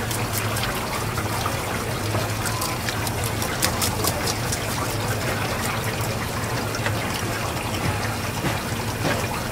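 Tap water running steadily onto a fish on a cutting board while a knife scrapes off its scales, giving a scatter of short sharp scraping clicks over the hiss of the water.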